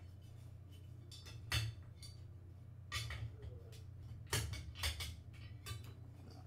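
Four or five sharp clicks and knocks of airsoft rifle parts and hand tools being handled on a desk, over a steady low hum.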